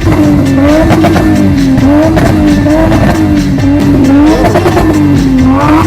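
Turbocharged Lexus IS200 1G-FE straight-six engine revved hard again and again, its pitch rising and falling about once a second, with crackles and pops mixed in.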